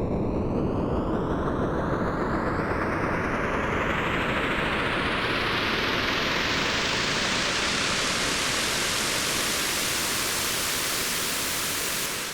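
Synthesized white-noise uplifter (riser) from the Massive software synth, with reverb: a noise whoosh that grows steadily brighter and climbs in pitch as its filter opens over about ten seconds, then stops near the end.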